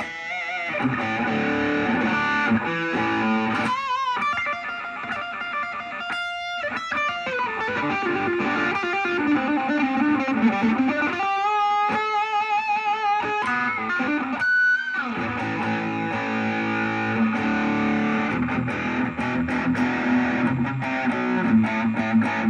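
Electric guitar played through a Vox VR30 Reverb combo amplifier on its overdrive channel with the gain set very low, giving a warm, lightly crunchy tone. A lead line of single sustained notes with wide vibrato and string bends.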